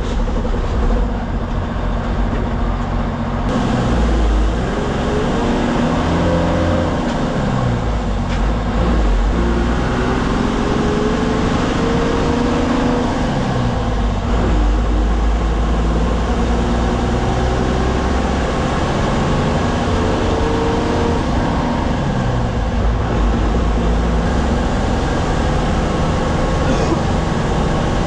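Diesel bus engine heard from inside the cabin while the bus is on the move, its pitch rising and dropping back several times as it pulls up through the gears, over steady road noise.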